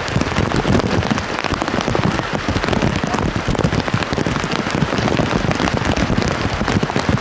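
Heavy rain pattering on the makeshift plastic rain cover wrapped around the camera, a dense, steady spatter of drops close to the microphone.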